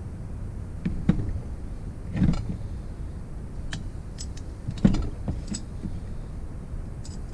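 Hand tools clinking and knocking on the metal of a small two-stroke bicycle engine while its magneto rotor is gripped to hold it from turning: a few separate sharp clanks, the loudest about five seconds in.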